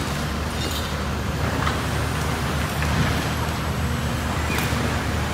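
Semi truck's diesel engine idling steadily, with a few short clicks and hisses over it.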